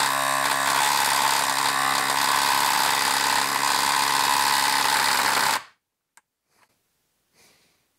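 DeWalt XR quarter-inch hex impact driver hammering continuously as it drives a large bolt into a log through a 24 mm impact socket, struggling under the heavy load. It cuts off suddenly about five and a half seconds in as the bolt is driven home.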